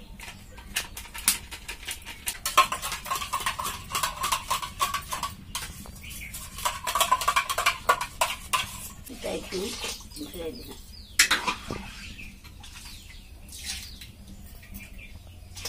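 Steel utensils clinking and scraping as milk is poured from a steel tumbler into an iron wok in two runs of a few seconds each, then a steel ladle stirring it in the wok. One loud metal clank about eleven seconds in.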